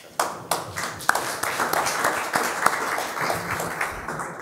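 Audience applauding, a dense patter of many hands clapping that starts right away and fades out near the end.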